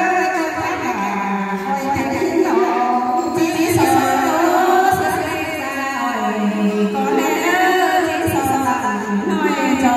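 Women singing a Thái folk song (hát Thái) into microphones over a sound system, in long held notes that waver and glide between pitches.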